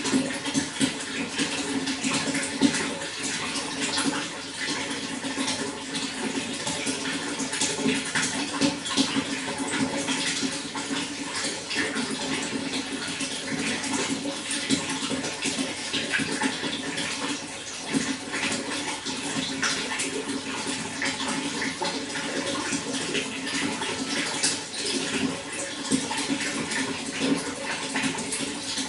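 Running water flowing steadily, with a dense patter of small splashes.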